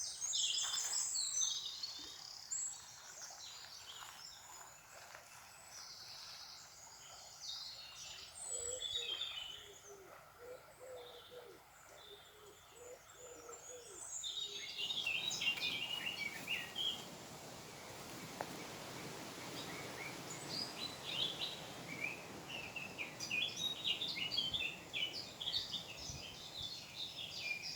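Several songbirds singing and chirping in hedgerows, a dense mix of short high notes. A louder steady rush of background noise comes in about halfway through.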